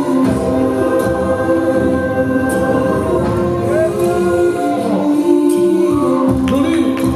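Music with held choral voices, long sustained notes layered over one another with a few gliding vocal lines, and a few sharp clicks near the end.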